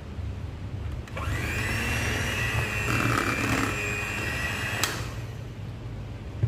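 Electric hand mixer starts about a second in and runs with a steady whine as its beaters work melted margarine into cake batter, then cuts off suddenly with a click near the end.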